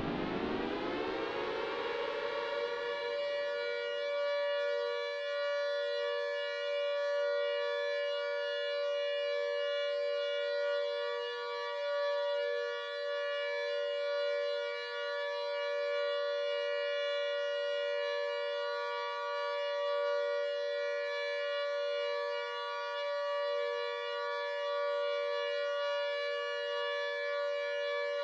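Air-raid siren winding up over the first couple of seconds and then holding a steady two-tone wail at full pitch: the steady 'alert' signal.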